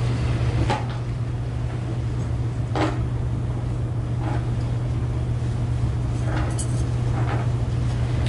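A steady low hum with a few faint knocks and rustles scattered through it, the clearest about three seconds in.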